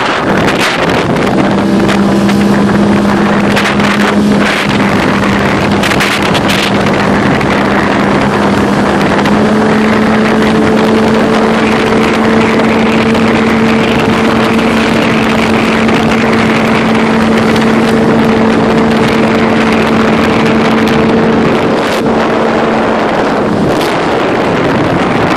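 Jon boat's motor running steadily under way, with heavy wind noise on the microphone. The motor's hum rises slightly in pitch about nine seconds in and drops away a couple of seconds before the end, while the wind rush carries on.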